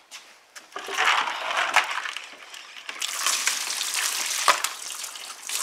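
A plucked turkey being pushed down into a bucket of ice water: water sloshing and splashing over the rim, with ice cubes clattering and knocking together, starting about a second in.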